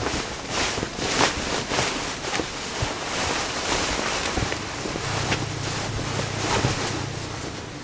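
A padded duvet rustling and swishing over and over as a small dog burrows and turns underneath it. A low steady hum joins about five seconds in.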